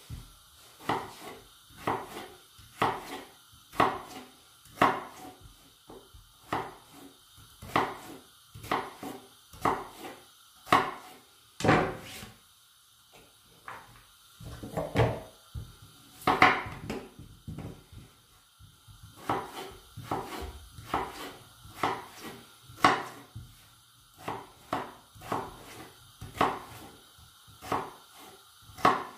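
Kitchen knife cutting raw potatoes into small cubes on a wooden cutting board: the blade knocks on the board about once a second, with a short pause about halfway through.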